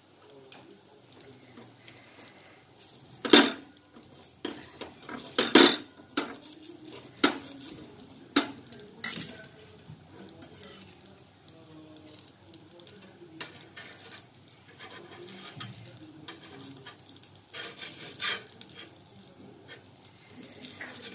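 A pizza-cutter wheel and then a knife cutting crisp papad sandwiches on a tawa griddle: a series of sharp cracks and metal clicks and scrapes against the pan, the loudest about three and five and a half seconds in, growing quieter and sparser after about ten seconds, with faint sizzling underneath.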